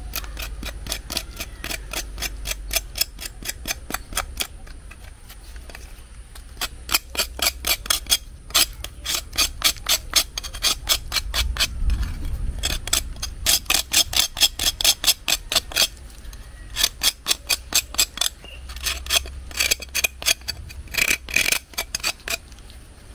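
Rapid runs of light clicks and clinks, several a second, broken by short pauses.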